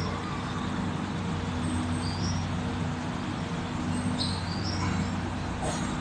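Steady low hum under background noise, with short high chirps about every two seconds.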